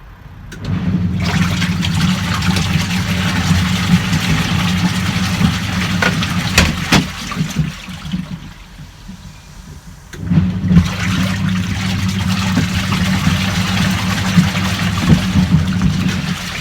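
Hisense twin tub washing machine's wash tub running: the motor hums and the pulsator churns water and clothes. It stops for about two seconds around the middle and then starts again, the pause in which the wash timer reverses direction.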